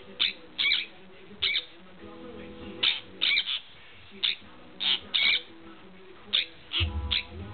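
Sun conure giving short, loud, high-pitched calls, about a dozen in irregular bursts, some in quick pairs.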